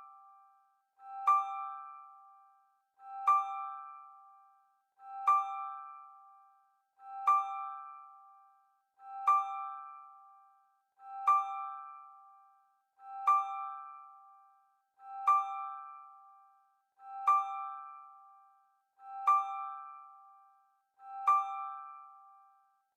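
Background music: one bell-like keyboard chord struck about every two seconds, each with a sharp attack that rings out and fades before the next, repeated unchanged eleven times.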